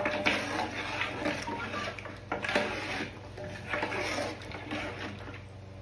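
A metal ladle stirring thick meat curry in a large aluminium pot, in irregular strokes.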